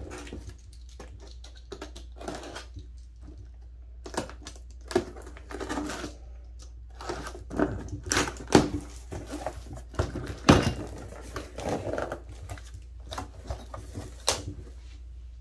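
Cardboard box being opened by hand: irregular scrapes, taps and crinkles of cardboard and packing tape as the taped flaps are pulled apart, with a sharper knock about ten and a half seconds in. A steady low hum runs underneath.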